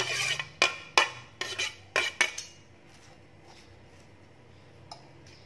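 Metal spoon clinking sharply against a glass bowl and a plastic chopping board, about half a dozen quick knocks over the first two seconds, as chopped spring onions are scraped off the board into the bowl.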